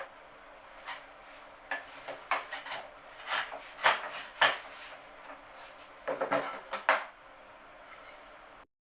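Hand plane worked on a wooden shooting board to square the end of a workpiece: a series of short, irregular strokes and knocks of wood and metal, loudest in a cluster about six to seven seconds in.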